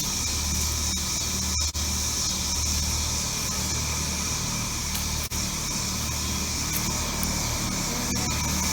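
Two 2017 Carrier Comfort heat pump outdoor units running in cooling mode: a steady low hum of the compressors and condenser fans. The sound cuts out for an instant twice.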